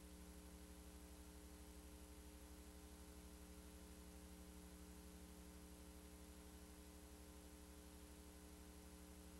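Near silence: a faint steady electrical hum with hiss, unchanging throughout.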